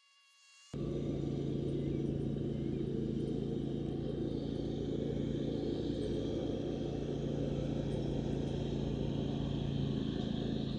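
A steady mechanical hum over a low, even rumble, like a motor running. It starts abruptly less than a second in, out of near silence.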